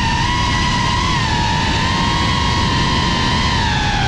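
Cinelog 35 FPV drone's motors and propellers giving a steady high-pitched whine, its pitch wavering slightly with the throttle, over a rough low rumble.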